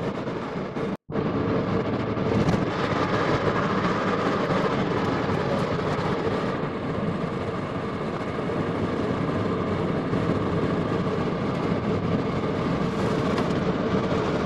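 Inside a Suzuki Ignis on the move: steady engine drone and road noise in the cabin. The sound cuts out completely for an instant about a second in.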